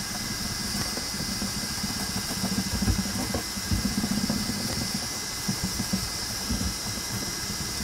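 Repeated wiping and rubbing strokes of a hand-held wipe across the Prusa i3 MK2S's PEI-surfaced print bed as it is cleaned, uneven and swelling with each stroke, over a steady high hiss.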